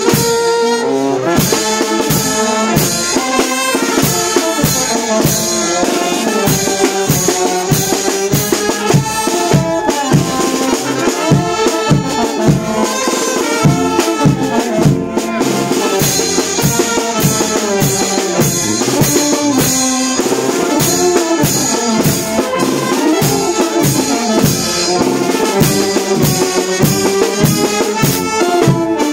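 Live brass band playing a tune: trumpets, trombones, saxophones and low brass over a drum kit keeping a steady beat.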